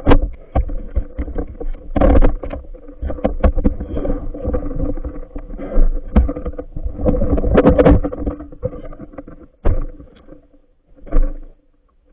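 Muffled underwater sound through a phone's waterproof housing: irregular knocks, scrapes and rushes of water as the diver moves and handles the phone, over a faint steady hum. It dies down about ten seconds in, after one last burst.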